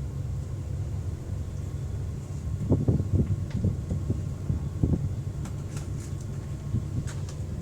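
Large diesel bus engine idling with a steady low rumble, with a few irregular thumps about three to five seconds in.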